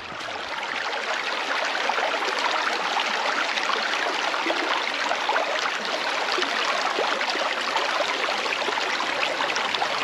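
Shallow river rippling over rocks: a steady rush and babble of water, flecked with small splashes, swelling in over the first second and then holding even.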